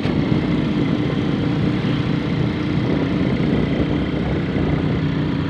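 A motor vehicle's engine running steadily at an even pitch.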